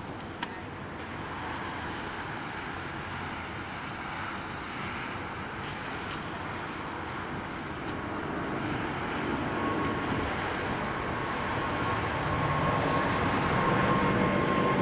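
Jet engines of a Boeing 777-200ER airliner, a broad noise growing steadily louder as the aircraft draws nearer. A steady whine joins in about two-thirds of the way through.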